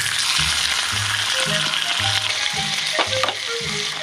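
Slices of ham sizzling in a hot wok on a gas camping stove, with background music and a short click about three seconds in.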